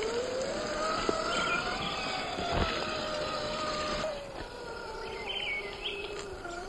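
Electric motor and drivetrain of a scale RC rock crawler whining as it drives, the pitch rising and falling with the throttle, with a sharp knock about two and a half seconds in. Birds chirp briefly a few times in the background.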